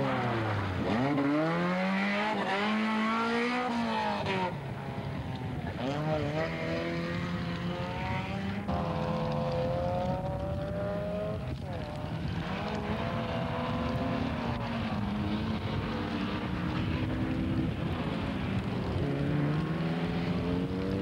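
Rally car engines revving hard, the pitch climbing and then dropping again and again with gear changes and throttle lifts, with a sharp drop about four and a half seconds in.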